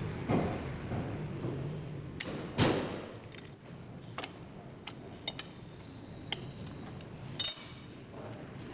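Metal tools and parts clinking and knocking at a lathe as they are handled and set down: scattered sharp clicks, the loudest knock about two and a half seconds in, and a ringing clink near the end.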